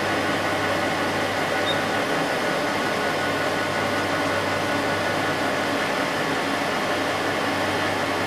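AMC 1500H crankshaft grinder running steadily with an even hum and hiss, not cutting: the crankshaft is stopped while a main journal is measured with a micrometer.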